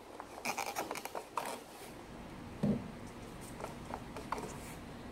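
Foam darts being pushed into a plastic Nerf clip magazine: a quick run of plastic clicks and scraping about half a second in, a dull knock near the middle, then a few lighter clicks.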